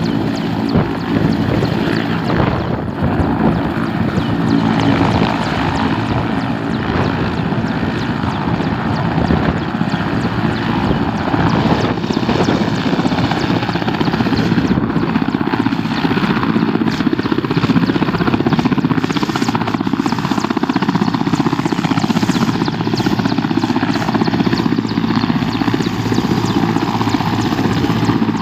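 Camouflaged military helicopter running, its rotor and engine making a loud, steady, fast chop.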